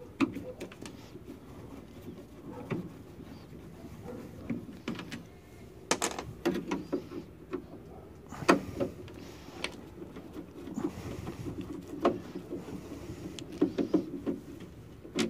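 Manual screwdriver turning Phillips screws out of a CRT television's plastic back casing: scattered, irregular clicks and small knocks of the tool against the screws and casing.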